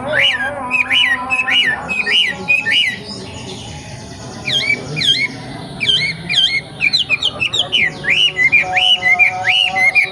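Young wild wambi songbird calling in rapid, repeated chirps that rise and fall in pitch, several a second, with a short lull about three seconds in.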